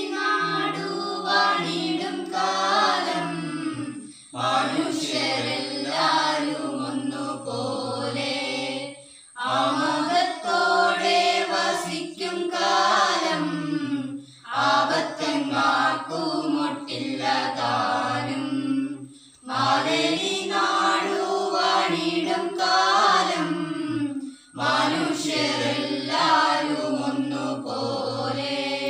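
A group of adults and children singing together in unison from a book, in phrases of about five seconds with brief breaks between them.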